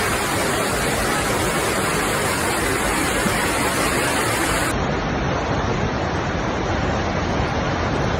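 Steady rushing of fast-flowing floodwater. About five seconds in it cuts to a duller-sounding stretch of the same kind of rush.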